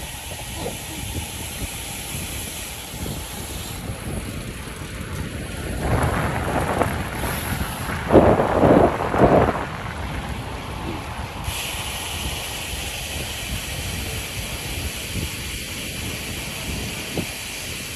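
Wind rushing over the microphone: a steady rumbling noise, with a few stronger gusts at about eight to nine and a half seconds in.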